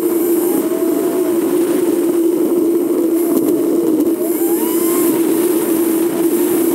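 Steady drone of a vehicle driving at road speed, engine and road noise heard from the camera riding on it, holding one low, even pitch with a few faint rising and falling tones above it.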